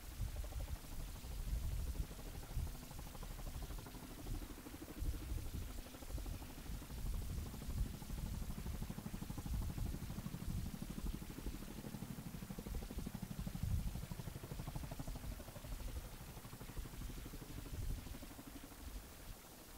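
Distant RAF Chinook twin-rotor helicopter in flight: a low, steady rotor beat, with irregular gusts of wind rumbling on the microphone.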